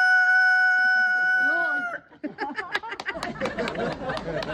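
Rooster crowing: a long, level final note held until about two seconds in, then cut off. After it comes a jumble of short clucks and calls from chickens.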